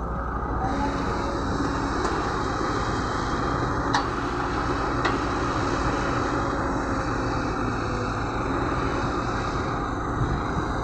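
Caterpillar 120B hydraulic excavator's diesel engine running steadily, with a hiss over the engine note for most of the stretch. Two short sharp knocks come about four and five seconds in.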